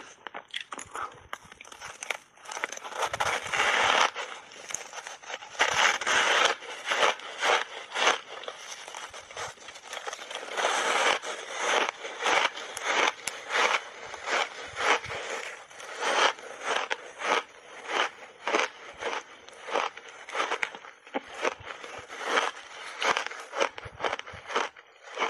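Refrozen ice chunks being bitten and chewed close to the microphones: a long run of sharp, crisp crunches, settling into a steady chewing rhythm of about two crunches a second in the second half.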